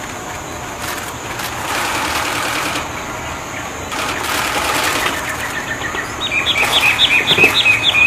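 Songbird singing in loud, harsh, scratchy stretches, then breaking into a fast, tightly spaced run of short sharp chirping notes about six seconds in.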